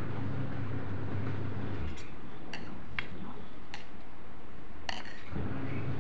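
Kitchen knife cutting a soft block of semolina sweet on a stainless steel plate, the blade clinking sharply against the steel about five times, over a steady low hum.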